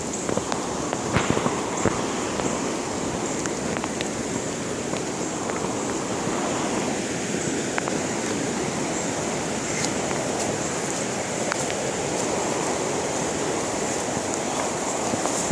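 Swollen, flooding creek rushing by in a steady, even wash of water noise, with a few faint sharp clicks in the first few seconds.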